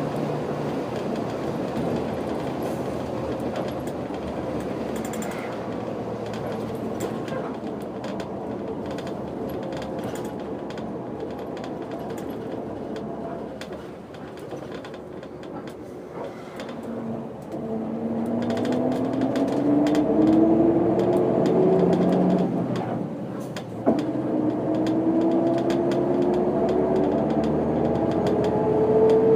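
Setra 315 UL bus heard from inside, first rolling along with road and cabin noise, then the engine pulling hard with a rising note. About 23 seconds in it drops for a manual gear change with a brief clunk, then climbs again in the next gear.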